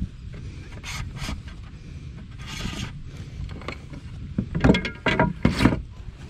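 Plastic fish-measuring board knocking and scraping against the plastic kayak deck as it is shifted into place, with a short scrape about halfway and a cluster of louder knocks near the end.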